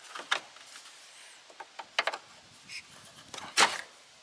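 Plastic clicks and knocks as a 2001 Chevrolet Silverado headlight assembly is seated and its retaining lock levers are pushed back in, with a few separate clicks and the loudest near the end.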